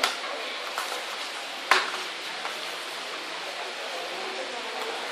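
Bodies landing in aikido breakfalls on foam puzzle mats, heard as sharp slaps and thuds: one just at the start, a faint one a little later, and the loudest a little under two seconds in. A steady room hiss runs underneath.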